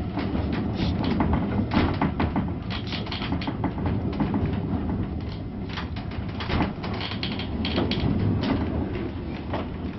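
Wooden-bodied railway carriage riding along the track: a steady low rumble with frequent irregular knocks and rattles from the body and fittings.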